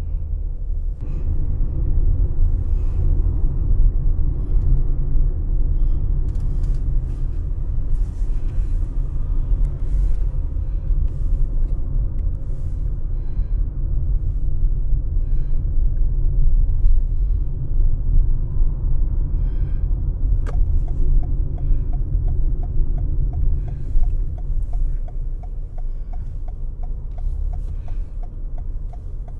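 Low, steady rumble of a car's tyres and engine heard from inside the cabin while driving, with scattered small knocks and rattles. A fast, regular ticking starts about two-thirds of the way through and keeps going.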